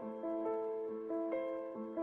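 Background music: a slow melody of held notes, a new note coming in about every half second.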